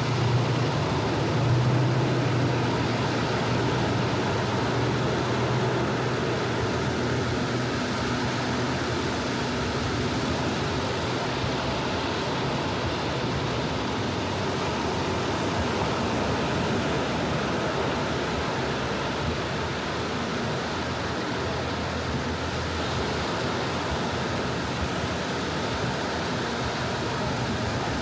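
Small sea waves washing onto a sandy beach in a steady, even wash of surf.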